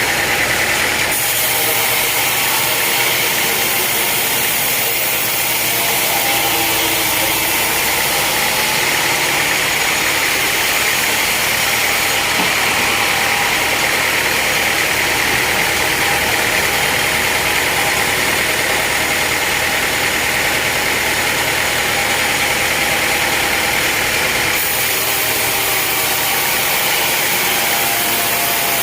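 Sawmill machinery running steadily: an engine-driven saw with a constant mechanical drone and a high whine.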